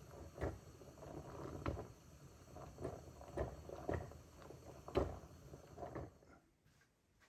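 Soft, irregular knocks and thuds, roughly one a second, over a low hum, stopping about six seconds in.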